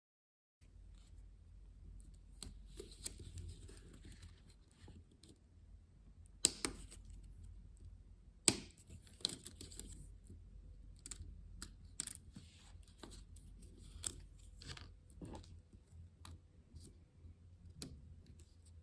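A MacBook butterfly-keyboard keycap being handled and pressed onto its hinge mechanism: faint scraping and small clicks, with two sharp snaps about six and a half and eight and a half seconds in as the keycap's clips catch.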